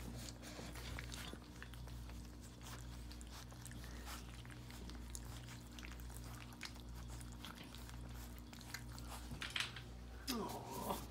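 Several puppies lapping and smacking at their first gruel in a stainless steel feeding saucer: a busy, irregular run of small wet clicks over a steady low hum.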